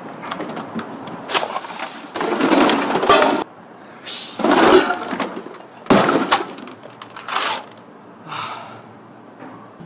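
Knocks, rattles and cracks from a delivery scooter being forced by hand without its key, several sharp bursts in a row through the first eight seconds.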